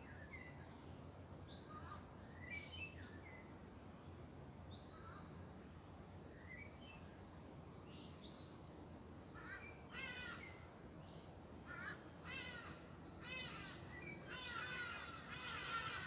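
Wild birds calling over the steady rush of a river: scattered short chirps and whistles at first, then from about ten seconds in, repeated calls that grow louder and merge into a dense chorus near the end.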